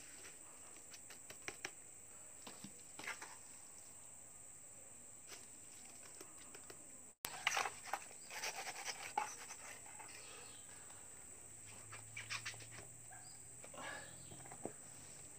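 Steel trowel scraping and patting wet cement mortar against the wall of a plastic paint bucket: a string of short scrapes and taps, busiest just after the middle and again near the end.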